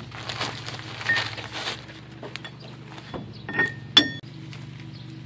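Packing paper rustling as steel press parts are handled and unpacked, then a sharp metallic clink about four seconds in, ringing briefly, as metal parts knock together. A steady low hum runs underneath.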